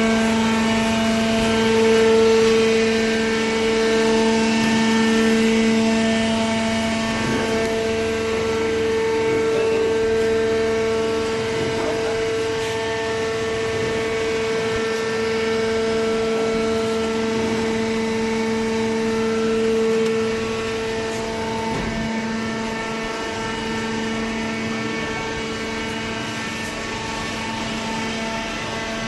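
Paper baler machine running with a steady, even-pitched droning hum, with a few faint knocks.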